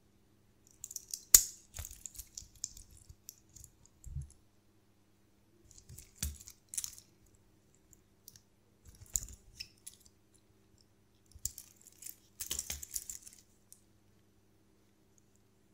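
A Seiko watch's metal link bracelet clinking and jingling as it is flexed and handled, in four short spells of small metallic clicks, the sharpest about a second in.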